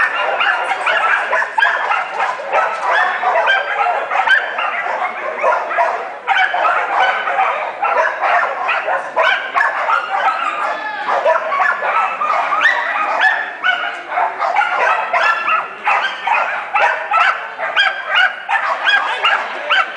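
Shetland sheepdog barking over and over in quick yips, several a second, with hardly a pause.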